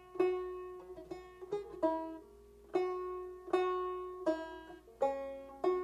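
Banjo picked slowly: about ten single notes at uneven intervals, each ringing out, as the player picks around trying to recall a tune.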